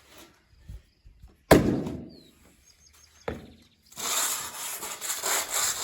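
Concrete finishing tools on a fresh slab: one sharp knock about a second and a half in, a lighter click a little later, then a rough scraping rub for about two seconds near the end.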